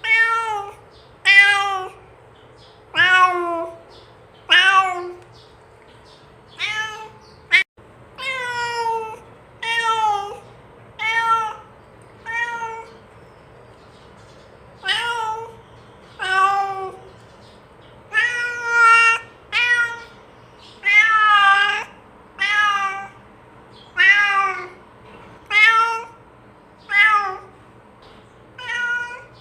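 A domestic cat meowing over and over, about twenty meows one to two seconds apart, each bending up and then falling in pitch: a cat calling to another cat. A single sharp click sounds about seven and a half seconds in.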